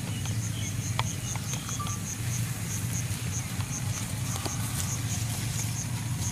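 A metal spoon clinks a few times against a ceramic bowl as a mixture is stirred. Under it runs a steady low hum, with a rapid run of short, high chirps.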